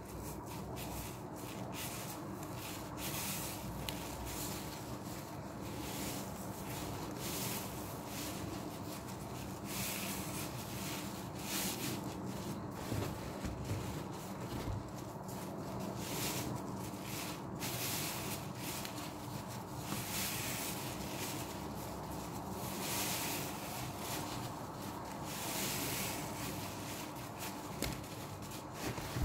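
Soaked foam sponges squeezed and scrubbed by hand in sudsy laundry-liquid water in a plastic tub, with uneven squeezes about once a second.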